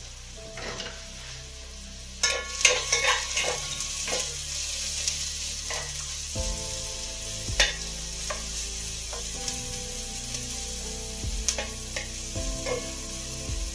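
Food sizzling as it fries in a pan, with a utensil stirring it and knocking and scraping against the pan in a run of clicks from about two seconds in.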